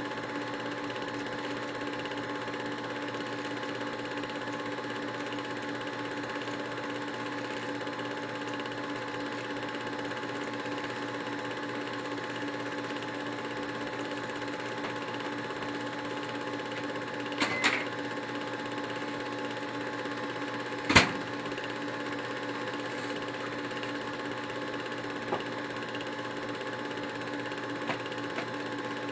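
Steady mechanical whir of a home-movie film projector running, with a few sharp clicks, the loudest about two-thirds of the way through.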